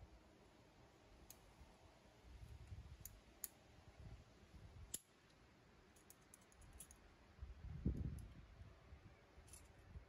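Faint, scattered clicks of carabiners and metal climbing hardware on a harness while rope is tied into a clove hitch on a carabiner, with a low bump of handling noise about eight seconds in.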